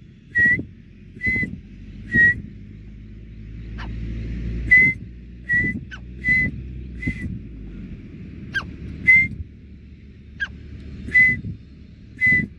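Short whistled notes repeating about once a second, answered by a young grey francolin with a few brief, sharp calls that slide downward in pitch.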